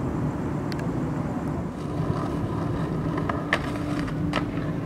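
Skateboard wheels rolling over pavement with a steady low rumble, and a few sharp clacks of the board in the second half.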